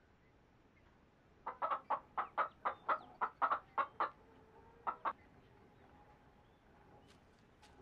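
Hen clucking: a quick run of a dozen or so short clucks, about four or five a second, then two more about a second later.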